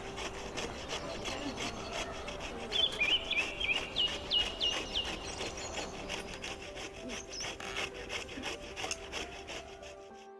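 Ash gourd being grated on a stainless steel hand grater: quick, even rasping strokes of the gourd flesh across the metal teeth. The strokes stop just before the end.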